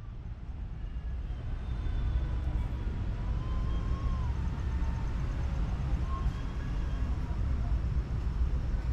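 Steady low rumble of outdoor background noise, with a faint short gliding tone about four seconds in.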